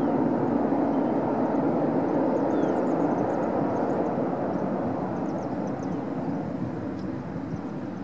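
Boeing 737-200's Pratt & Whitney JT8D turbofan engines rumbling with a steady whine as the jet rolls out down the runway after touchdown. The sound fades gradually as the aircraft moves away.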